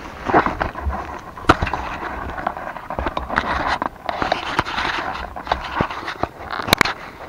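Kayak being paddled: the paddle blades splash and rush through the water, with a scatter of sharp clicks and knocks.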